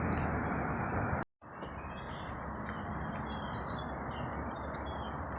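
Steady outdoor background noise with a few faint bird chirps, broken by a short dead-silent gap about a second in where two recordings are spliced together.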